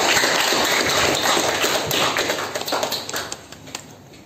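Applause from a small group, many hands clapping at once, thinning to a few last claps and dying away about three seconds in.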